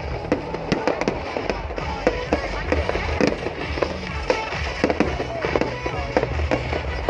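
Fireworks display: a dense run of bangs and crackles from aerial shells going off one after another, with music with a deep bass line playing under them.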